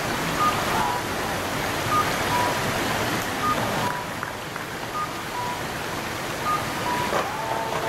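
Steady outdoor background noise with an electronic two-note chime, a short higher note followed by a longer lower one, repeating about every second and a half.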